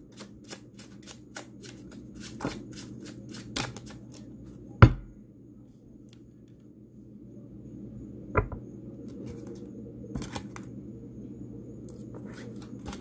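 Tarot cards being shuffled by hand: a quick run of light snaps and flicks for the first four seconds, one sharper knock about five seconds in, then a few scattered taps.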